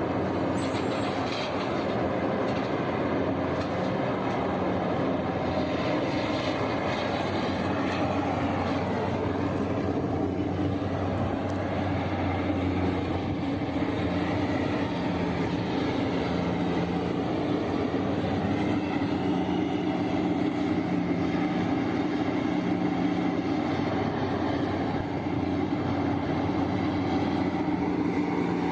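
Large Liebherr mining excavator at work: its engine running steadily, with a low hum under a broad mechanical din.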